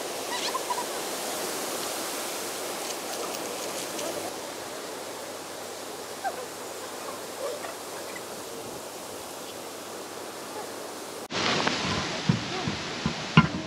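Steady hiss of outdoor background noise with a few faint small clicks while hub nuts and washers are worked on by hand. After an abrupt cut near the end come several sharp knocks as the road wheel is handled back onto the hub.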